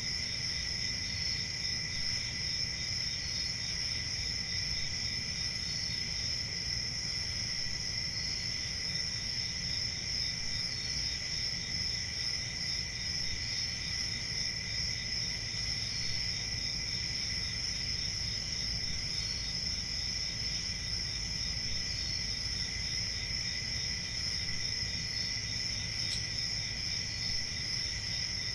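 Crickets chirping: several crickets trilling steadily together, with one short chirp repeating every two to three seconds, over a low background rumble.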